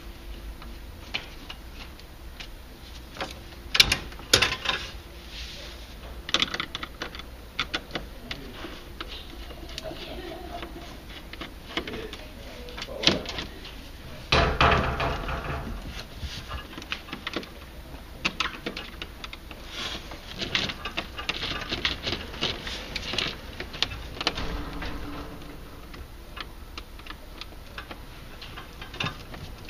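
Screwdriver and hand-handling noises at a hot tub circulation pump: scattered clicks, knocks and rattles of plastic and metal as the bonding strip is removed and the pump is unscrewed from its base, with one louder scraping knock about halfway through.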